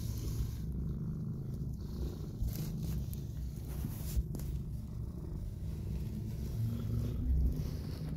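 Calico mother cat purring steadily, a low continuous rumble, while her newborn kitten nurses.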